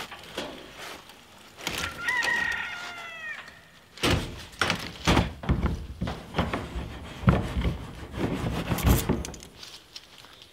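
A rooster crows once, about two seconds in: one long call that falls in pitch at the end. After it comes a run of knocks and clanks as the caged plastic water tank and a garden hose are handled.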